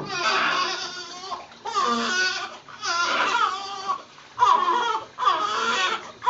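Newborn baby crying in a series of about five wails, each about a second long, with short breaths between.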